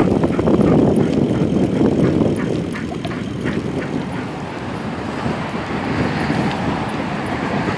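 Wind buffeting the microphone and bicycle tyres rolling on pavement, a loud steady rumble. Through the first three or so seconds it carries quick light clicks from the running husky.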